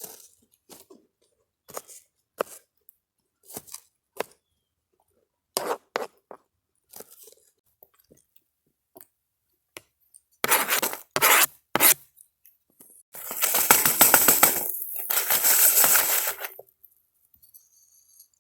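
A scatter of short taps and crackles, then a few louder rustling bursts, and about thirteen seconds in a loud sizzle of food hitting a hot pan over the campfire. The sizzle lasts about three and a half seconds and then stops fairly suddenly.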